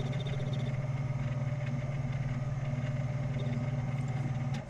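Shoptask lathe-mill combo running as it turns an off-centre eccentric held offset in a four-jaw chuck, the tool taking a cut: a steady motor hum with a fast, even pulse in loudness. It cuts off suddenly just before the end.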